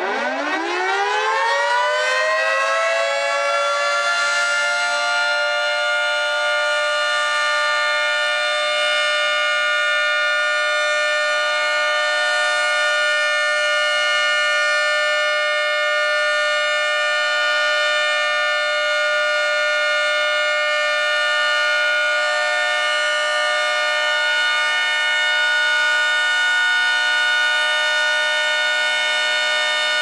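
Federal Signal 3T22B single-phase three-tone storm siren winding up, its chord rising in pitch over the first few seconds, then holding a steady chord at full speed: the steady alert signal of its weekly test.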